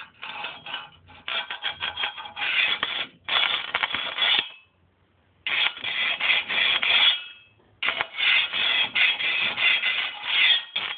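High-voltage sparks arcing from a 555-timer-driven car ignition coil, crackling and buzzing in runs of one to two seconds that break off twice for about a second.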